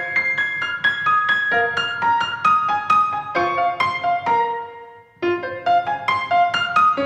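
Background piano music, a light melody of single notes, that fades out about four and a half seconds in and starts again suddenly about a second later.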